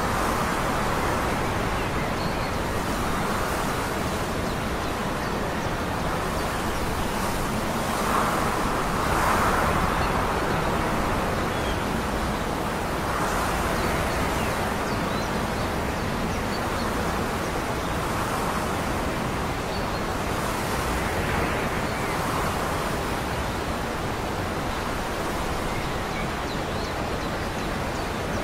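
Steady outdoor rushing noise that swells and eases every few seconds, with no clear engine note or other distinct sound standing out.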